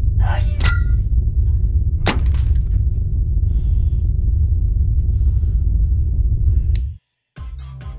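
Horror-film sound design: a loud, low rumbling drone with sharp crashes and glass breaking in the first couple of seconds. The drone cuts off suddenly about seven seconds in, and electronic music with a beat starts just before the end.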